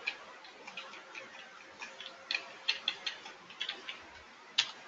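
Computer keyboard typing: irregular keystroke clicks, several bunched together in the middle and a sharper one near the end.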